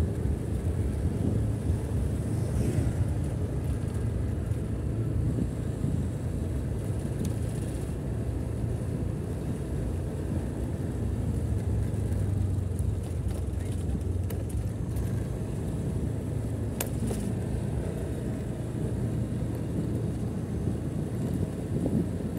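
Motorcycle engine running steadily while riding, a continuous low hum with road and wind noise.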